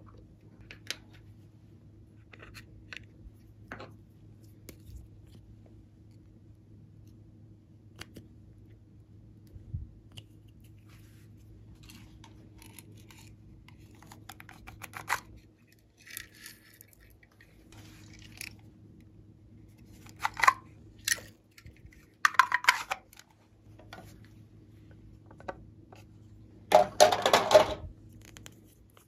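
Hands handling small plastic makeup tubes and containers: scattered light clicks and taps, with louder crinkly, rattling bursts in the second half, the longest near the end, over a steady low hum.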